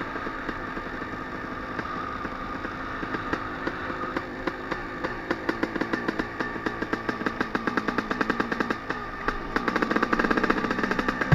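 Suzuki RM250 single-cylinder two-stroke motocross engine running at low to moderate throttle as the bike is ridden, heard from the rider's helmet. Near the end the throttle opens and the engine gets louder.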